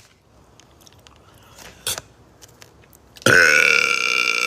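A loud, drawn-out burp lasting over a second, starting about three seconds in, after a short click about two seconds in.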